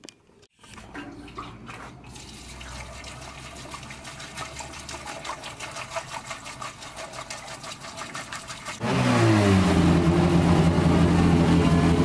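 Petrol glugging out of a jerry can through a funnel into an aluminium fuel cell, a rapid even gurgle. About nine seconds in, the Ford Escort Cosworth's turbocharged YB four-cylinder fires up loudly, its pitch dropping briefly before settling into a steady idle.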